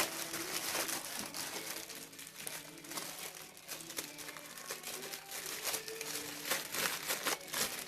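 Plastic packaging crinkling and crackling as it is handled and pulled away, in irregular bursts.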